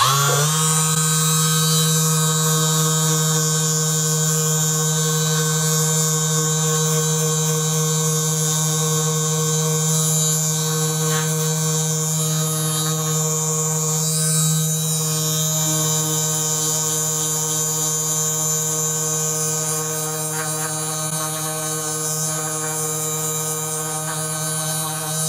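Handheld percussion massage gun buzzing against the shoulder and neck muscles. It switches on right at the start, then holds one steady pitch.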